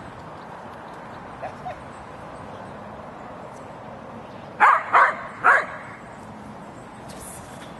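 Dog barking three times in quick succession, about half a second apart, around two-thirds of the way through, with a couple of faint yips earlier on.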